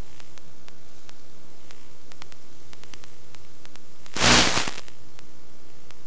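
Steady static hiss on the audio of a 5.8 GHz analog FPV link carrying the RC crawler's onboard microphone, with no motor running, and faint scattered clicks. A loud burst of noise lasting about half a second comes a little after four seconds in.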